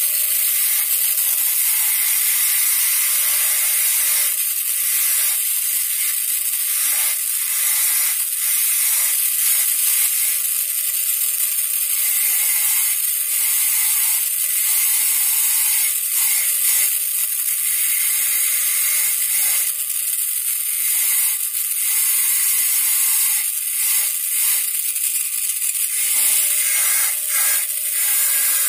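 High-speed air-turbine dental handpiece running with its water spray, its bur grinding the labial surface of a typodont premolar to connect the depth-orientation grooves. A steady, high hissing whine that wavers slightly as the bur bears on the tooth.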